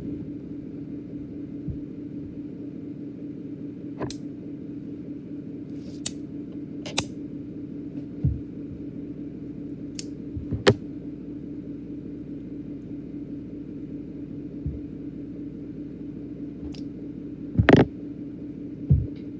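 Scattered sharp clicks and taps over a steady low hum, spaced a few seconds apart, with a louder knock and a dull thump near the end.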